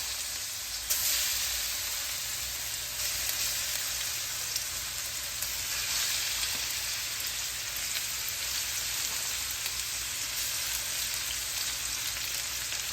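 Chicken pieces sizzling as they fry in hot oil in a wok on high heat. The sizzle jumps sharply louder about a second in, then settles to a steady hiss.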